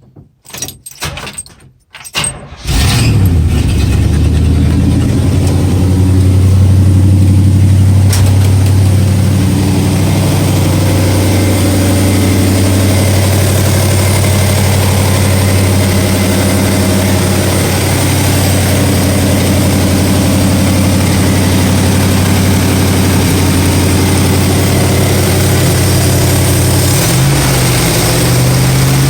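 1967 Pontiac GTO's 400 cubic-inch V8 cranking briefly on the starter, catching after about two and a half seconds and settling into a steady, loud idle. This is its first start after all the engine gaskets were replaced.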